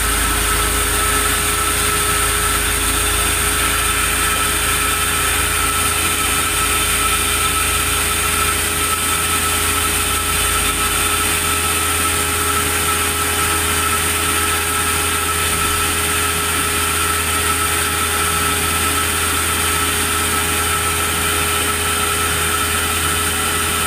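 Sawmill machinery running steadily: a constant mechanical hum with a high, unchanging whine and no cutting strokes or bangs.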